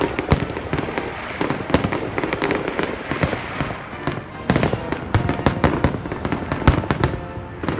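Fireworks going off in quick, irregular succession: many sharp bangs mixed with crackling, with no break.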